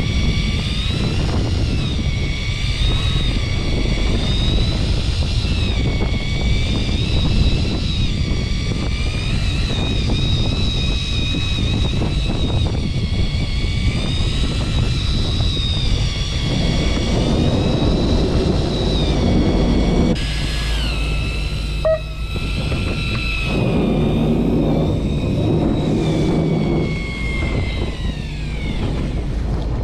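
Fishing boat's engine running, a heavy low rumble with a steady high-pitched whine over it that drops in pitch near the end.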